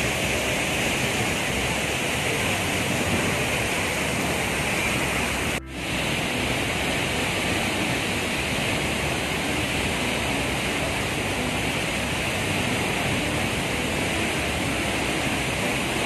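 Steady rush of falling and flowing water from Tegenungan waterfall and the river below it, an even hiss strongest in its upper middle range. The sound drops out briefly about five and a half seconds in.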